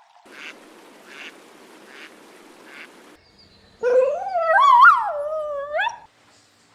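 A faint hiss with four soft calls about a second apart, then a dog howling: one long, loud call whose pitch wavers up and down for about two seconds.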